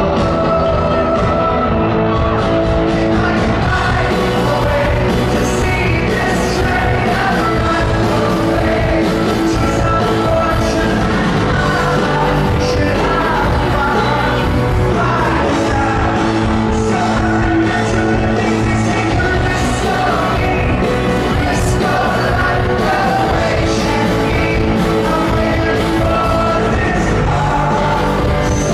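Rock band playing live in a concert hall: drums, bass and guitars under a sung lead vocal, loud and steady.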